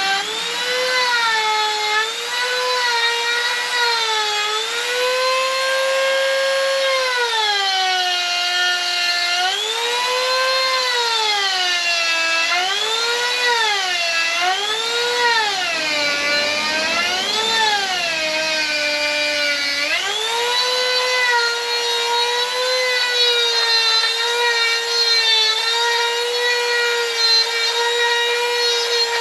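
Handheld corded electric grinder carving wood: a high motor whine whose pitch sags and recovers again and again as the tool is pressed into the wood, then holds fairly steady for the last third.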